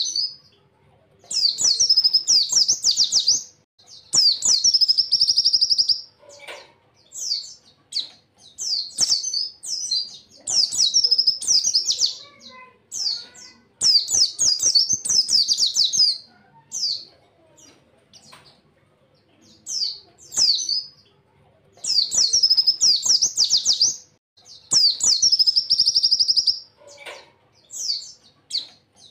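Pleci (white-eye) singing: high, fast phrases of rapid chirps and trills, each one to two seconds long with short pauses between, several ending in a buzzy, held trill.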